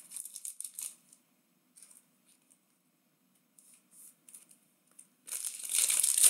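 Foil trading-card pack wrapper crinkling lightly at first, then torn open about five seconds in with a loud burst of tearing and crinkling.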